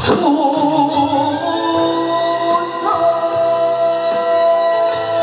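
A male singer sliding down into the song's last word and holding it with vibrato for about a second and a half, over a sustained chord from the backing track that keeps ringing after the voice stops.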